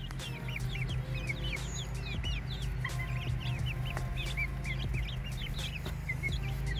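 A group of young chickens peeping, with many short high chirps overlapping several times a second, over steady background music.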